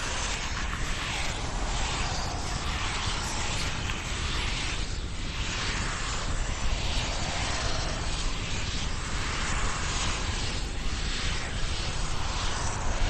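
Horror sound effect of a distorted demonic recording: a dense, steady rumbling noise with slow swells in its hiss about once a second.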